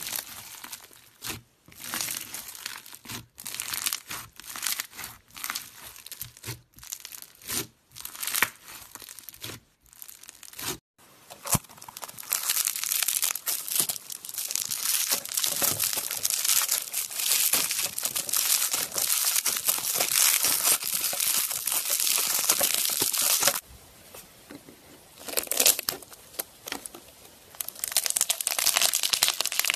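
Crunchy slime being pressed and squeezed between fingers, crackling and popping. At first the crackles come in short separate squeezes with pauses between them; from about a third of the way in they run on steadily, drop quieter near the end, then pick up again.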